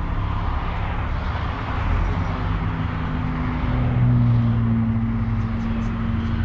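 Routemaster double-decker bus engine running under way, with road noise, heard from inside the upper deck. About four seconds in, the engine note rises a little and gets louder.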